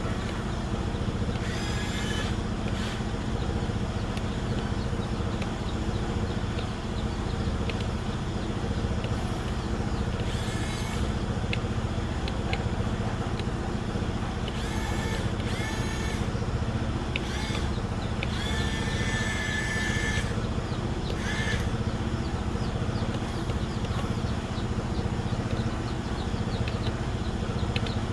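A heavy engine running steadily with a low, even rumble, cut by half a dozen brief high-pitched squeals or screeches, the longest lasting about two seconds near the middle.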